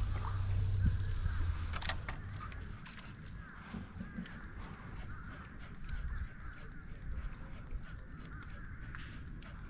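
Many birds calling at once, a dense chatter of short rising and falling calls, with a few sharp clicks.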